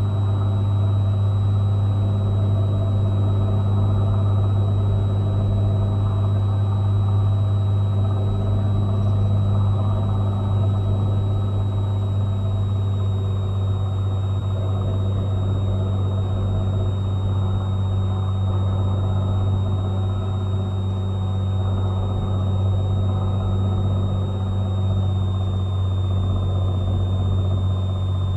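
Cessna 182T's six-cylinder Lycoming engine and propeller droning steadily, heard inside the cabin, with a thin steady high whine above the hum.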